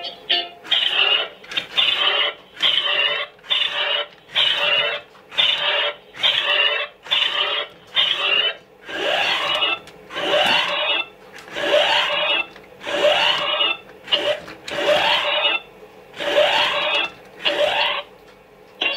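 Toy robot's electronic sound effect through its small built-in speaker: a harsh pulsing sound repeating about one and a half times a second, each pulse carrying a rising sweep from about halfway through.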